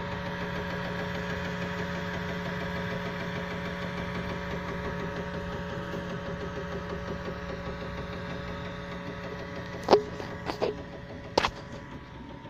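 UP Box 3D printer running a print: a steady motor whine with a tapping from the extruder, which is still gripping and now and then slipping on the filament. Three sharp knocks come near the end.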